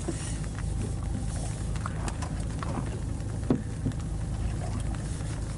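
Scattered light clicks and knocks from rod and reel being worked while a hard-pulling fish is played, over a steady low rumble, with one sharper knock about three and a half seconds in.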